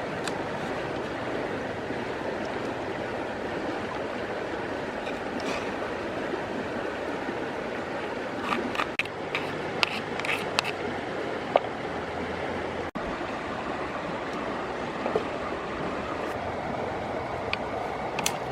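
Steady rushing of a flowing river. A few sharp clicks and taps sound over it near the middle.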